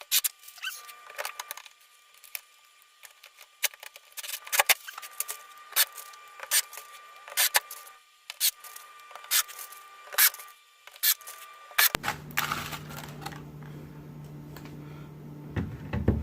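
Irregular light clicks and knocks from screws and wooden rack pieces being handled and set in place, with a faint steady hum over the last few seconds.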